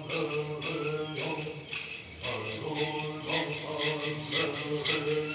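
Hualapai bird song: voices singing a steady chant to gourd rattles shaken on an even beat of about two strokes a second.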